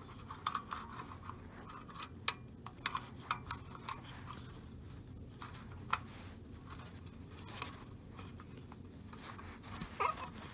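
Small sharp clicks and light scraping as fingers push the carbon brushes and their spring clips back into the brush holders of a Hoover Elite vacuum motor. The clicks come thick in the first few seconds, then one near the middle and a few more near the end.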